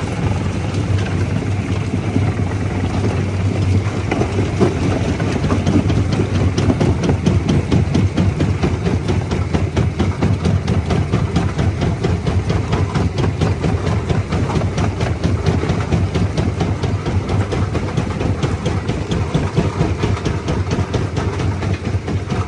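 A large stone jaw crusher running under load, with a steady low machine hum and a rapid, continuous clatter of rock being broken between the jaws.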